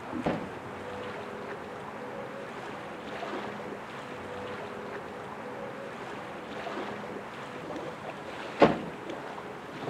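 Steady wind noise with a faint low hum, broken about eight and a half seconds in by one short, sharp crack, the loudest sound here, just after a lightning bolt strikes.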